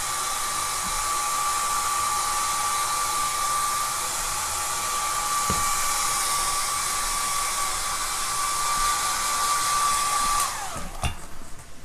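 Handheld electric hair dryer running steadily, a rush of air with a high motor whine. It is switched off near the end, and the whine falls away as the motor spins down, followed by a few small handling knocks.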